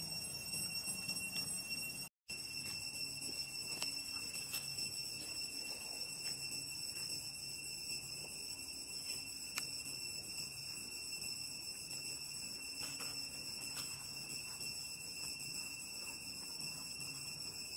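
Steady high-pitched drone of insects in the forest canopy, holding one unbroken pitch with no pulsing. The sound cuts out completely for a split second about two seconds in.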